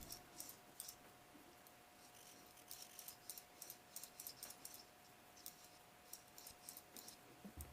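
Faint, irregular small metal ticks and scrapes of a small driver turning screws back into the handle of an out-the-front automatic knife, over a faint steady tone.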